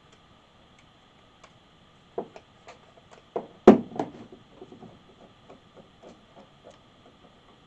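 Clicks and knocks of a Chevy HEI distributor being handled and turned over on a workbench while the rotor screws are worked loose. There is a quick cluster of knocks about two to four seconds in, the loudest near the middle, followed by lighter ticks.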